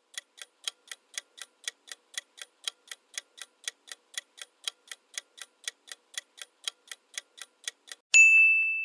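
Clock-ticking sound effect counting down a quiz timer, a steady tick-tock at about four ticks a second alternating louder and softer. About eight seconds in the ticking stops and a bell-like ding rings out to mark the end of the countdown.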